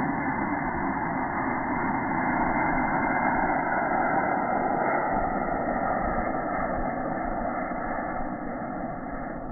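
An aircraft's engine passing overhead: a steady drone whose tones slowly fall in pitch as it goes by, fading a little near the end.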